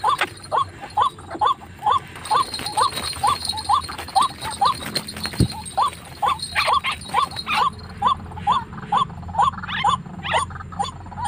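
White-breasted waterhen calling over and over, short hooked notes about two a second with a brief gap near the middle. A low thump comes about five seconds in, and there is rustling while the snared bird is taken by hand.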